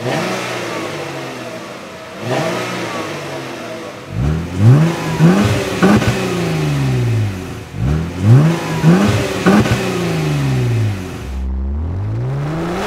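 Jeep Wrangler JK's V6 engine through a Dynomax Super Turbo axle-back exhaust, idling and being revved: one rev about two seconds in, then two clusters of several quick revs, each falling back to idle. Near the end the note drops and then climbs steadily as the Jeep accelerates on the road.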